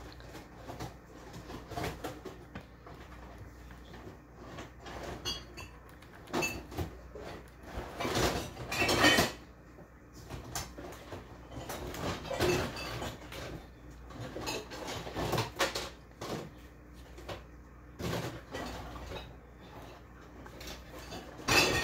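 Dishes, pots and cutlery being handled in a kitchen: scattered clinks and knocks, with a louder cluster about eight to nine seconds in.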